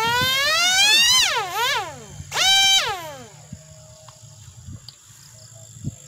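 2205 brushless motor and 5-inch propeller of a homemade foam flying wing revved in short bursts while the plane is held before launch: a whine rising in pitch through the first second and then falling away, then a second, shorter burst about two seconds in.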